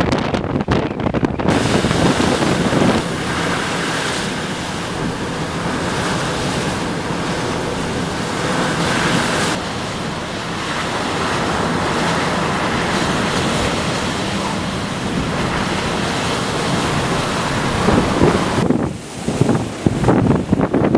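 Hurricane-driven surf breaking in a dense, steady rush, with strong wind buffeting the microphone in gusts at the start and again near the end.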